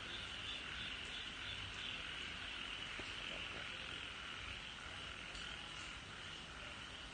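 A steady, high-pitched chorus of calling animals, like a nighttime frog or insect chorus, running without a break and fading slightly near the end.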